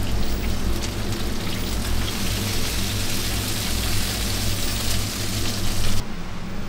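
Food sizzling in hot fat in a deep fryer, a steady hiss over a low hum, cutting off abruptly about six seconds in.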